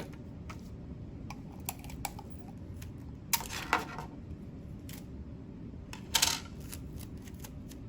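Tape being handled on a tabletop: scattered light clicks and taps, with two short noisy rips, one about three and a half seconds in and one about six seconds in, as tape is pulled from the roll.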